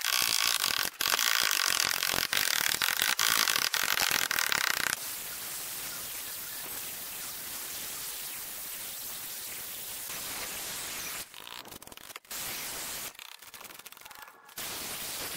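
A concrete block column being cut back: sharp knocks and ringing of the block being chipped for about the first five seconds, then an angle grinder with a masonry blade cutting steadily into the block. Near the end the cutting stops and starts.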